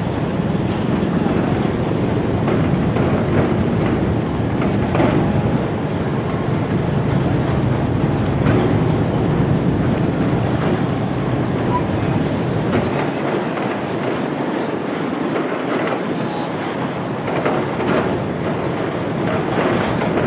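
Steady low mechanical rumble with a rushing wash of noise and no clear pitch, the running of engines.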